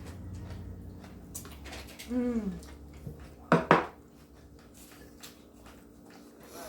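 Eating utensils clicking and scraping against plates and food containers, with two sharp knocks in quick succession about three and a half seconds in.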